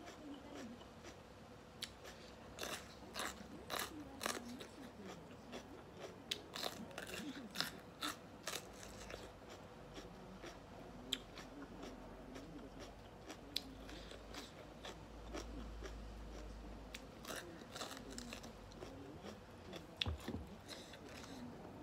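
A person chewing a mouthful of raw bitter gourd (bitter melon), with repeated crisp crunches. The crunches come thick in the first several seconds, thin out in the middle, and pick up again near the end.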